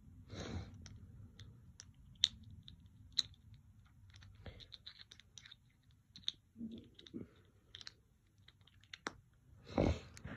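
Small plastic toy pieces being handled, with scattered light clicks and brief rustles.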